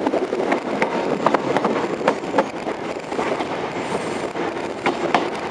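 Grand Central HST train running along the track, heard from an open window: a steady rush of wind and running noise, broken by a string of sharp clicks from the wheels over the rails.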